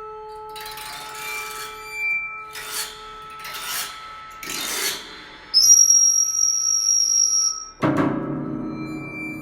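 Experimental chamber music for prepared piano, recorder, bowed Tibetan singing bowls and crystal glasses. Several scraping strokes over steady ringing tones give way to a loud high held tone, which is cut off near the end by a low struck note that rings on.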